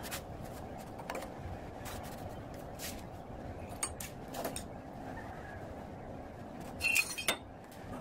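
Scattered light metallic clinks and clicks of hand tools and steel parts being handled, the loudest a pair of sharp clinks about seven seconds in, over steady background noise.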